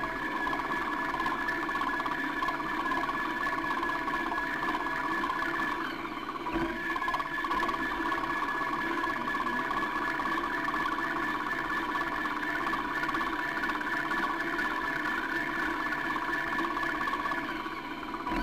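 The small motor of a radio-controlled camera boat running with a steady whine in two pitches. It cuts out briefly about six seconds in, then picks up again.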